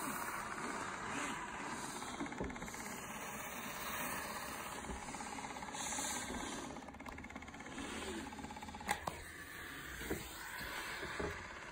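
Handheld garment steamer running: its pump buzzing steadily with a hiss of steam as the head is passed over roller-blind fabric. A couple of sharp clicks near the end.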